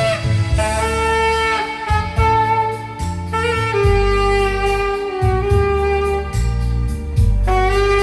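Alto saxophone playing the sung melody of a Korean pop ballad in long held notes, over a keyboard accompaniment with bass and a steady drum beat.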